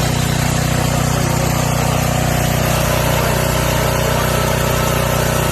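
Briggs & Stratton 5250-watt portable generator's engine running steadily at an even pitch on its cleaned, rebuilt carburetor.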